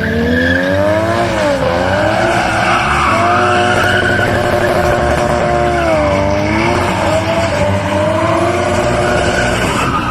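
An engine revving up and down in long smooth sweeps, holding steady between the sweeps.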